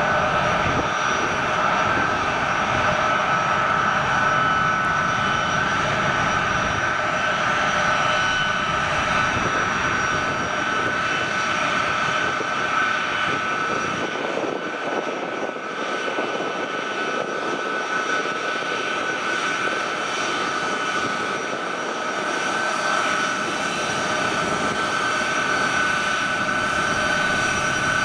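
Boeing C-17 Globemaster III's four Pratt & Whitney F117 turbofan engines running at taxi power: a steady jet whine with several high held tones over a broad rush. The deep rumble thins out about halfway through.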